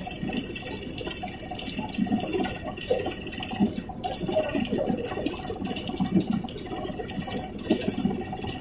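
Belt-driven rag-shredding machine running, tearing old cloth fed into its hopper into stuffing fibre. It makes a steady whir with an irregular churning beneath it.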